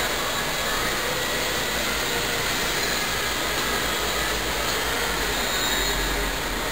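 Steady, even rushing noise with no distinct events standing out.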